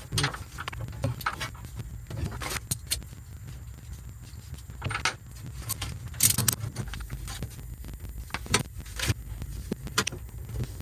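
Metal hooks and buckles of tie-down straps clinking and rattling as they are handled, with scattered sharp clicks, the loudest about six seconds in, over a steady low hum.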